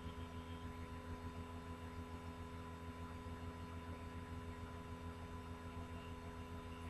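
Steady electrical hum with a faint hiss, unchanging throughout, with no other sound.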